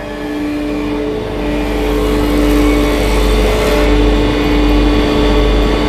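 A workshop machine running with a steady hum and two held tones over a low rumble, growing louder over the first two seconds and then holding steady.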